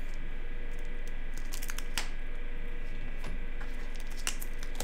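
Hands handling a shrink-wrapped cardboard tablet box: a few scattered light taps and clicks over a steady low hum.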